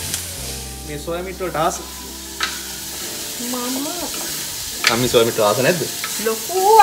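Spices, green chilli and curry leaves sizzling as they fry in hot oil in a clay pot, with a spoon stirring them. Short bits of quiet voice come in over the sizzle.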